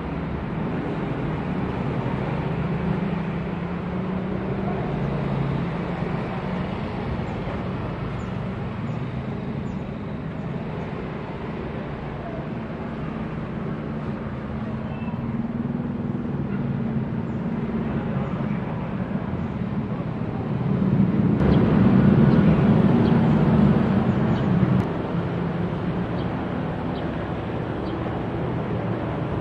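Single-engine light aircraft flying overhead, a Piper Archer TX and then a Cessna 172P Skyhawk, each with a four-cylinder piston engine: a steady low propeller-engine drone under outdoor background noise. About three-quarters of the way through the drone abruptly gets louder for about three seconds, then drops back just as suddenly.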